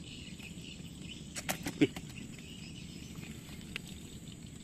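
A short cluster of sharp knocks and rattles about a second and a half in, from a hand grabbing a wriggling catfish against the mesh and frame of a net fish trap, with a single small click later. A steady insect chirr runs underneath.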